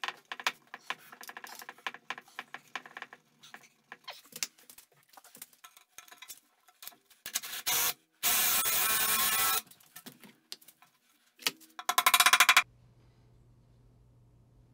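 Light wooden clicks and knocks as sticks are set into holes in a wooden chair seat, then a power drill runs with its bit in the wood in short bursts: a brief one, a longer one of about a second and a half, and a last short one near the end.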